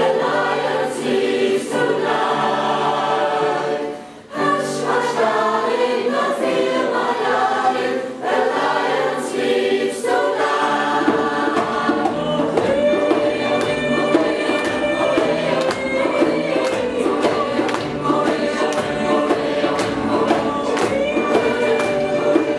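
Mixed choir of women's and men's voices singing together. There is a brief break about four seconds in, and from about eleven seconds on a steady rhythmic beat runs under the voices.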